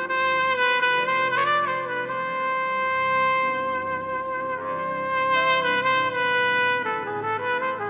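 Trumpet playing a slow worship melody: long held notes, with short quick runs about a second and a half in and again near five seconds, and a few stepping-down notes near the end, over a soft accompaniment.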